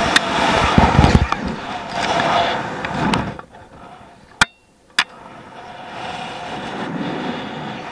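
Wind rushing and buffeting over a head-mounted action camera's microphone during the free fall of a rope jump, loud for about three and a half seconds, then dropping away to a softer steady rush. Two sharp clicks come about four and a half and five seconds in.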